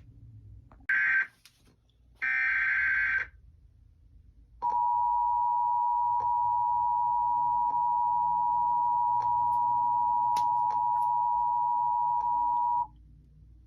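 Emergency Alert System tones between two broadcast warnings. There is a short data burst about a second in and a longer one of about a second just after two seconds, both the screeching SAME header code. Then comes the steady two-tone attention signal for about eight seconds, which cuts off sharply near the end.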